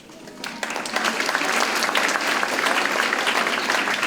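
An audience of students and teachers applauding, beginning about half a second in and quickly building to steady clapping.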